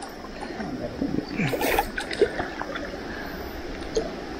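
Shallow rocky stream running steadily over stones, with a few short clicks and small splashes on top, the sharpest about two seconds in.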